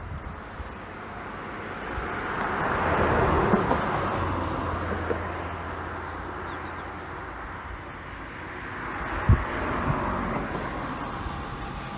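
Hessische Landesbahn VT2E diesel railcar approaching: a low engine drone and rumble that swells, eases, and builds again as the train nears, with a brief low thump about nine seconds in.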